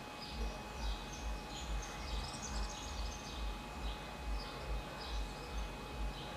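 Outdoor ambience: short high chirps repeating again and again, over soft low thuds about twice a second and a faint steady high tone.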